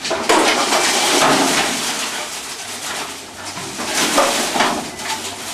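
Bare Volkswagen split-window Kombi body shell being rolled over on a rotisserie: a loud, irregular clattering and scraping of sheet metal and the rotisserie frame. It is loudest just after the start, about a second in, and again around four seconds.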